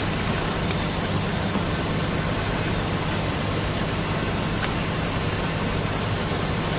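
A steady, unchanging hiss with a low hum underneath, and a faint click a little past the middle.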